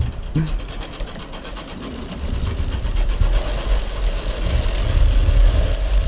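Sky bike's pulley wheels rolling along a steel zipline cable: a steady rumble and hiss that grows louder from about two seconds in as the ride gathers speed.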